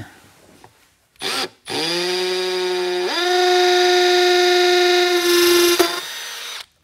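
Milwaukee Fuel compact cordless drill running while drilling pilot holes in the subwoofer's amplifier panel. A short burst comes first, then a longer run whose whine settles low, jumps higher about three seconds in and holds steady before stopping near the end.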